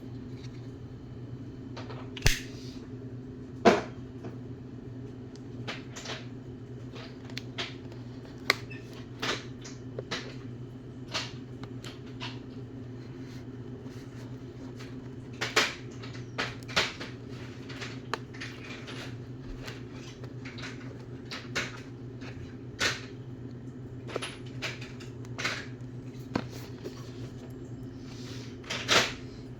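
Irregular clicks and knocks of a boxed screw extractor set and its plastic packaging being handled and opened, over a steady low hum.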